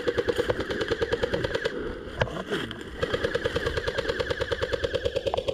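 Airsoft rifle firing on full auto: a rapid, even rattle of shots in two long bursts, with a short pause about two seconds in broken by a single sharp crack.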